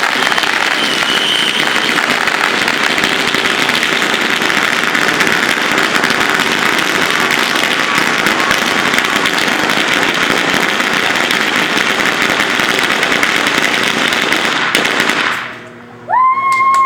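A long string of firecrackers crackles in rapid, continuous pops for about fifteen seconds and then stops suddenly. Just before the end, a whistling tone starts.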